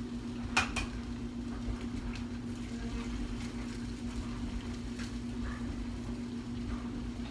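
An egg being cracked: two quick sharp knocks just over half a second in, then a few faint clicks. A steady low kitchen-appliance hum runs underneath.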